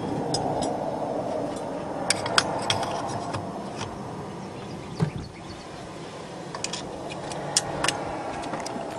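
Scattered clicks and taps of a nitrous bottle's remote valve opener being slipped onto the bottle valve and its thumb screw worked by hand, with a dull knock about five seconds in, over steady background noise.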